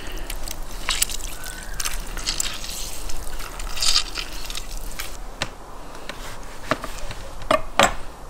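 Lemon halves squeezed by hand, the juice squirting and dripping onto pieces of raw sturgeon in a plastic bowl, with small wet squelches and drips. Near the end come a few sharp knocks of a knife cutting a lemon on a wooden board.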